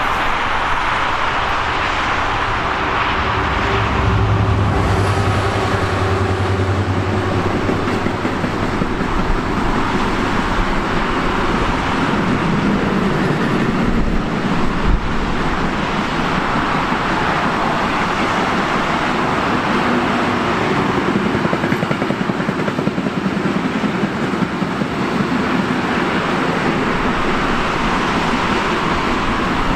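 A train passing, with a steady rolling noise of wheels on rail.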